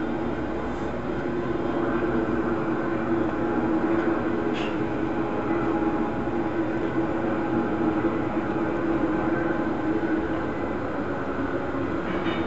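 Iga Line electric train standing with its doors open, its onboard equipment giving a steady, even hum.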